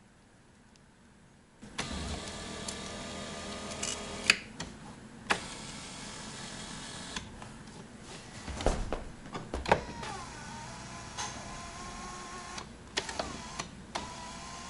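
Electric seat-adjust motors of a Ford 10-way power bucket seat, wired directly to 12-volt power, running in two spells: a steady whine for about two and a half seconds, a few clicks and knocks, then another steady whine from about ten seconds in. The motors running show the power and ground leads are wired correctly.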